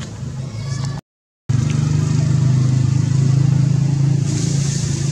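A steady low engine drone, like a motor vehicle running close by. It cuts out to silence for about half a second a second in, then returns louder. A high hiss rises near the end.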